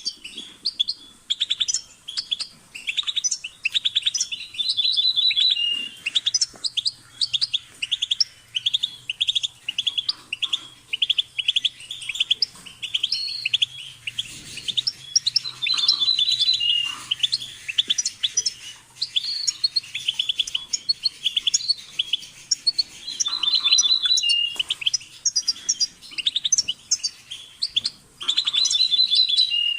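European goldfinch singing a continuous, rapid twittering song of fast trills and ticks, with a phrase that recurs every several seconds and ends on a short lower held note.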